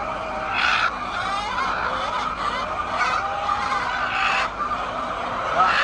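A large flock of hens clucking and squawking together in a steady din, with short louder squawks standing out a few times.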